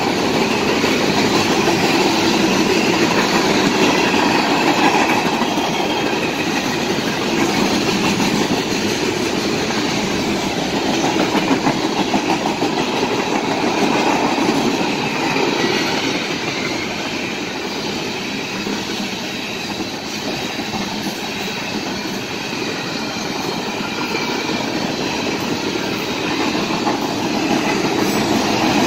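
Freight train of tank cars rolling past close by: the steady noise of steel wheels running on the rails.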